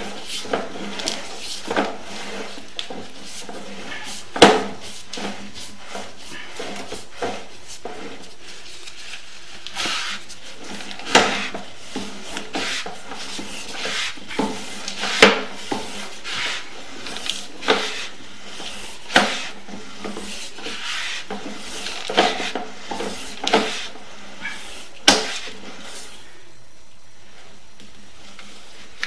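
Sewer inspection camera's push cable being pulled back through the line: irregular knocks and rubbing scrapes every second or two, the loudest about four seconds in. The knocks stop a few seconds before the end, leaving a steady low hiss.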